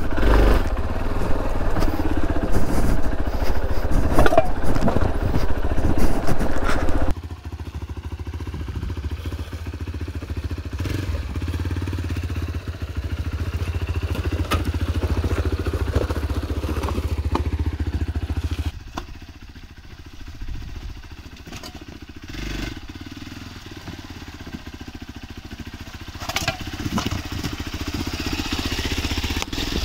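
Hero Xpulse 200 single-cylinder motorcycle engine running as the bike is ridden over a rough off-road trail. Loud and noisy for the first seven seconds or so, then a steadier low engine note, dropping quieter about two-thirds of the way through.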